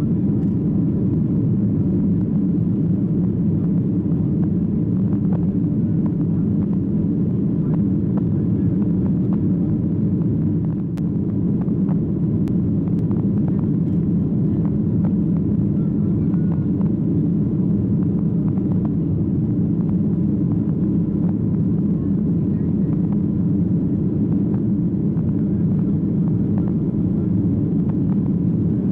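Steady cabin noise of a jet airliner in flight, heard from a window seat over the wing: a deep, even rumble of engines and airflow with a faint steady whine above it.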